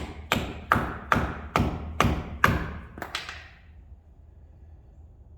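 Dead blow hammer tapping a metal dust cover into the wheel hub of a 2019 F-150 front end: about nine quick strikes over three seconds, each with a short ring, then the tapping stops.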